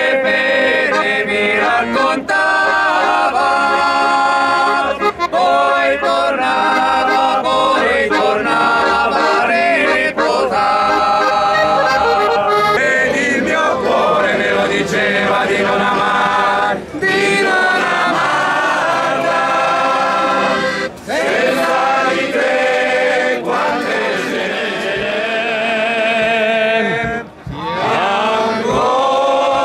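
A group of men singing a traditional Piedmontese egg-begging song together, accompanied by a piano accordion, with a few brief pauses between phrases.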